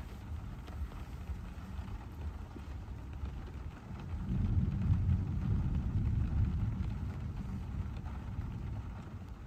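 Car driving on wet city streets: a low rumble of road and engine noise, swelling louder about four seconds in and then easing off.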